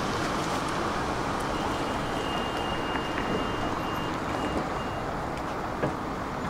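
Tram running on its rails: a steady rolling rumble and rattle. From about a second and a half in, a thin high-pitched tone sounds over it and breaks into short pulses before stopping about five seconds in.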